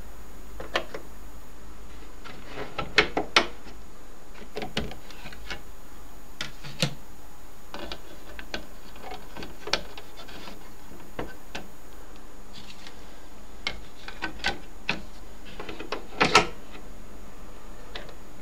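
Fidelity HF42 record player between records: scattered mechanical clicks and knocks, a few in quick clusters about three seconds in and again near the end, over a steady low hum.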